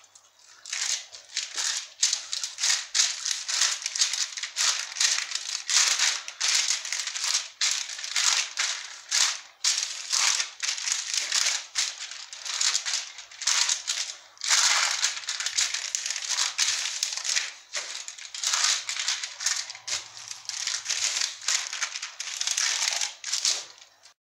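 Greaseproof paper crinkling and rustling under hands pressing and spreading dough on it, a dense run of quick crackles with brief lulls.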